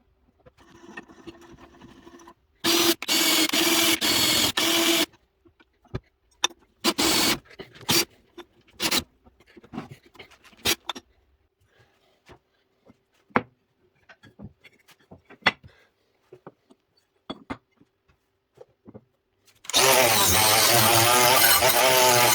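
Power tool work: a power tool runs in short bursts, followed by scattered clicks and knocks of parts being handled, then a power tool starts up and runs steadily near the end.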